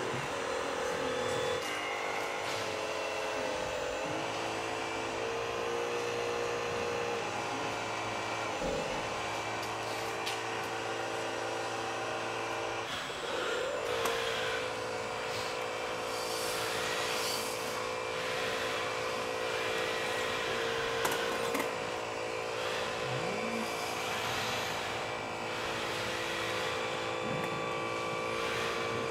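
Hydraulic pump of a scale RC Liebherr 944 excavator whining steadily, its pitch dipping and rising a few times as the boom and bucket are worked. Bursts of hiss come in the second half.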